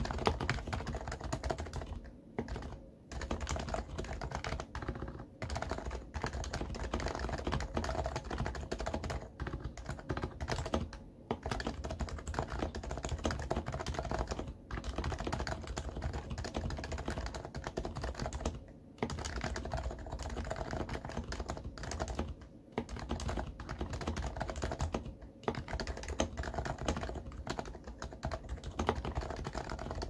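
Continuous fast typing on a Happy Hacking Keyboard Hybrid Type-S, whose silenced Topre switches have sliders and stabilisers lubed with Krytox 205g0. The keystrokes run in a dense stream, with brief pauses several times.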